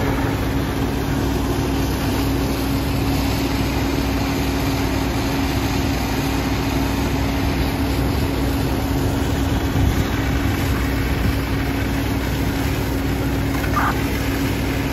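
Fire engines running steadily, a continuous low drone with a steady hum, as the apparatus pumps water to the hose lines and the ladder's master stream.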